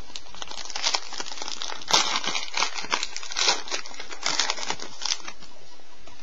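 Trading-card pack wrapper crinkling and crackling in the hands as a pack is opened. There is a quick, irregular run of crackles that dies away about five seconds in.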